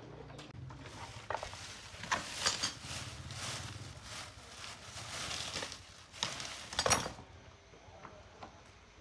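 Hand tools working metal parts: clinks and knocks with short scraping strokes, loudest around two and a half seconds in and again near seven seconds, then quieter.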